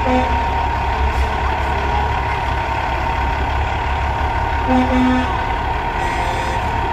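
Diesel engines of semi-trucks running steadily as they drive slowly past in a convoy, with a pair of short toots about five seconds in.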